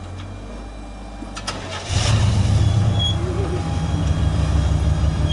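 Off-road buggy engine running low under light throttle, then revving up hard about two seconds in as it is driven up a steep rock ledge, with a couple of sharp clicks just before.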